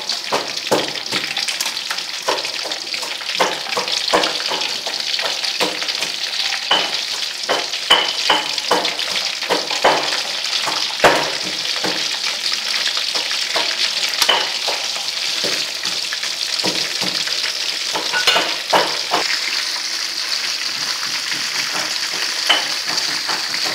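Fish steaks deep-frying in hot oil in a wok: a steady high sizzle with frequent irregular crackling pops.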